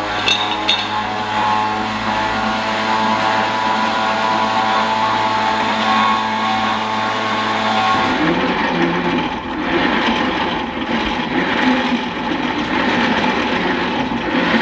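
Warn Zeon 12-S electric winch motor running steadily as it pays out the old synthetic winch line, stopping about eight seconds in. After that come rougher, uneven scraping and rustling sounds as the line is pulled off the winch through the fairlead by hand.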